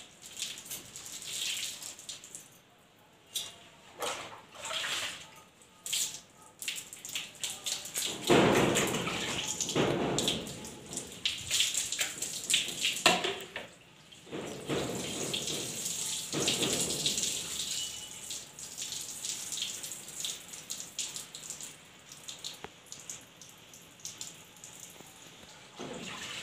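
Wet squelching and swishing of hands working shampoo lather through long wet hair, in irregular bursts, with water dripping and splashing.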